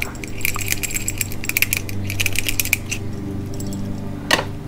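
Small metal clicks and scrapes of two screwdrivers prying at a Honda GC160 carburetor to work its float hinge pin out: a rapid run of ticks for the first few seconds, then a single knock near the end, over a steady low hum.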